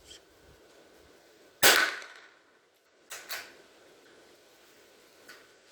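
A single shot from a Marlin Glenfield .22 LR rifle about one and a half seconds in, sharp, with a brief trailing echo. Two fainter clicks follow close together about a second and a half later.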